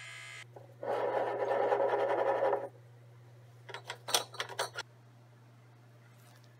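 Electric pipette controller on a serological pipette, its motor buzzing briefly, then a louder, noisier whir for about two seconds as it moves liquid in a glass media bottle. About four seconds in come a few quick clinks of glass bottles being handled, over a steady low hum.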